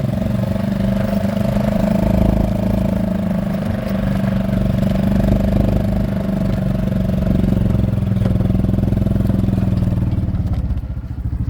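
A motor vehicle engine running at a steady speed, then shut off near the end.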